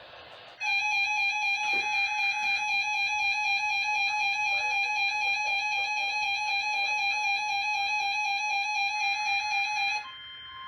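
Weather-alert radio sounding its alarm for a NOAA Weather Radio weekly test: a loud, steady electronic tone with a slight waver, starting after a moment of radio hiss. Near the end it cuts off and the broadcast's quieter, steady warning alarm tone, slightly higher in pitch, carries on.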